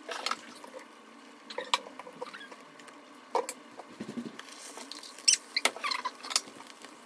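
A spatula tapping and scraping against a frying pan while an egg omelette cooks: scattered light clicks and short scrapes, with a duller knock about four seconds in.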